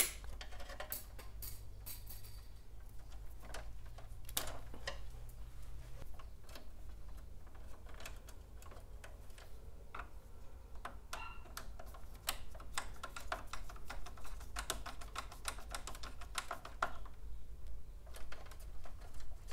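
Small clicks and taps of hand tools on wire and metal in a breaker panel as the black hot wire is bent into place and a screwdriver tightens the breaker's terminal screw. A denser run of quick little ticks comes over several seconds late on, while the screwdriver turns.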